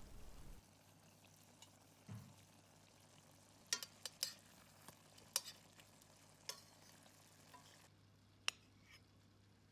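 A few faint, scattered clicks and taps of a utensil against a pan as seasonings are stirred into a stew, over a low steady hum.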